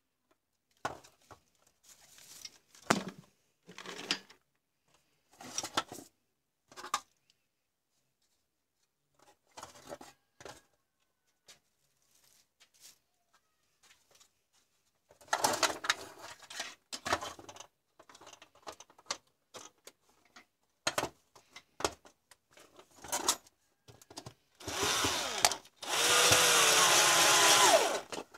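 Scattered clicks, taps and rustles of plastic parts being handled, then near the end a power drill runs twice, a short run and then a longer one, boring into a white plastic charger case.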